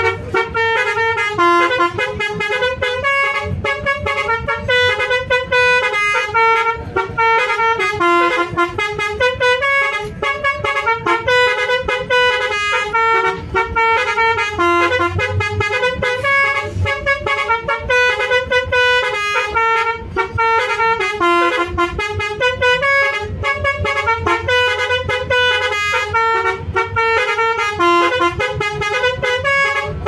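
Basuri telolet multi-tone bus horn playing a continuous melody of quick stepped notes, with a low hum underneath.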